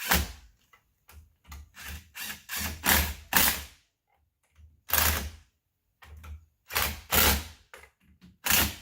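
A hand ratchet wrench being worked on a wheel lug nut in short, uneven strokes, pausing briefly twice.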